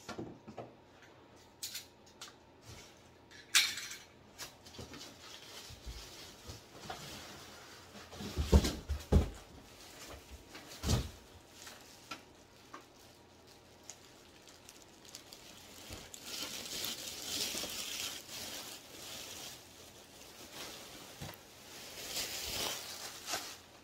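Unpacking a printer from its cardboard carton: cardboard flaps and plastic wrapping rustling and crinkling, with scattered clicks. A few heavy thumps come about eight to nine seconds in, and another near eleven seconds, as the plastic-wrapped printer is shifted and lifted out of the box.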